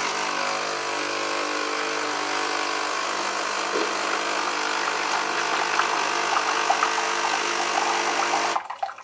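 A Delonghi Lattissima 680 Nespresso machine's pump running steadily, pushing hot water through the empty capsule chamber to flush out leftover coffee, with water splashing into a glass. It cuts off suddenly near the end.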